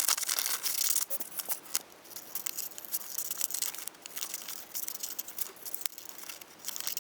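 Scissors cutting a paper shield shape out of a sheet of paper: a run of short snips mixed with paper rustling.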